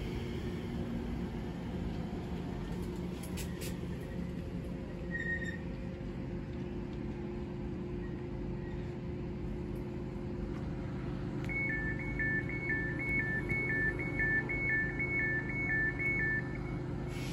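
Class 345 electric train standing at the platform, with a steady electrical hum. About two-thirds of the way through, a rapid two-tone door warning alarm begins beeping, alternating between a higher and a lower pitch about two to three times a second for roughly five seconds: the doors are about to close.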